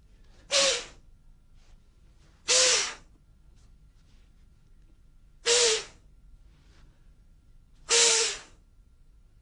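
Four sharp, forceful breaths from a martial artist, evenly spaced a few seconds apart, each with a brief voiced note: the explosive combat breathing used with Emei Paida Gong's conditioning movements.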